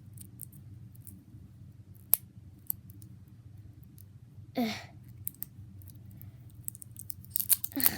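Sharp plastic clicks and snaps of a small putty container lid being pried and twisted open by hand, scattered at first and coming thicker near the end, with a brief effortful grunt about halfway through. A steady low hum sits underneath.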